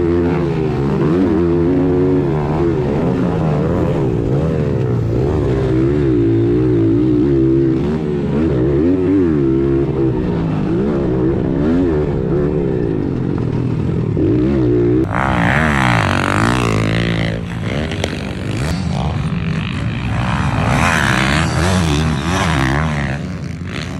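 Small four-stroke pit bike engine racing on a dirt track, its pitch rising and falling again and again as the rider works the throttle and gears. About two thirds of the way in the sound changes abruptly to a noisier, hissier mix with fainter engine sound from pit bikes out on the track.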